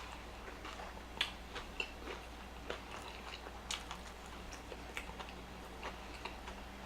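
Close-miked chewing of a mouthful of fast-food sandwich: irregular soft, wet mouth clicks and smacks, with a slightly louder one about a second in.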